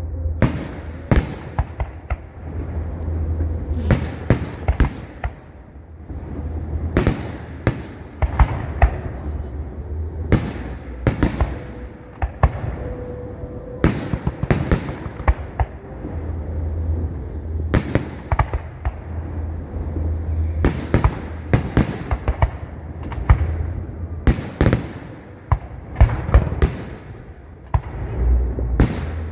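A fireworks display: a fast, uneven run of sharp shell bursts and crackling reports, dozens of them, over a continuous low rumble.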